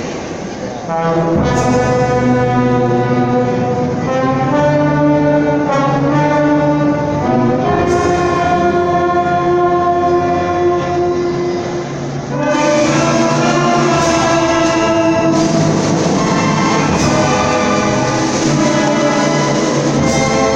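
Symphony orchestra playing held chords, with the brass prominent. The music eases briefly about twelve seconds in, then returns at full strength.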